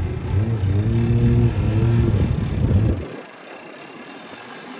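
A nearby motor vehicle engine running, its low drone rising and falling a little in pitch. It cuts off suddenly about three seconds in, leaving a quieter outdoor hiss.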